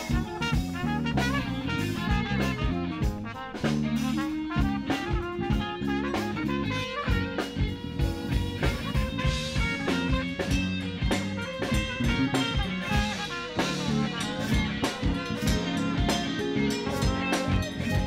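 A live band playing an instrumental passage: drum kit keeping a steady beat under electric bass, keyboard and trumpet.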